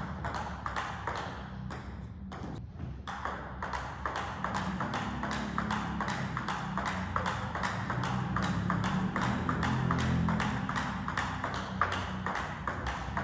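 Table tennis ball clicking back and forth in a long rally, struck by the bats and bouncing on the table, about three sharp clicks a second.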